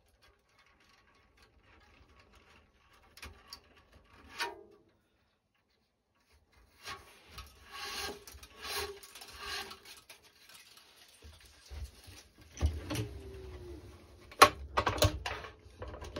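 A cross string being woven over and under the main strings of a racquetball racket and pulled through, rubbing and rasping against them. It is mostly quiet at first, the rubbing comes in bursts from about seven seconds in, and there are several sharp knocks near the end.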